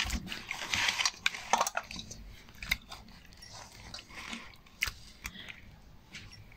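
Hands rubbing a wet spice marinade into whole chira fish in a steel bowl: wet squelching and smearing, with several sharp clicks of the fish or fingers against the bowl.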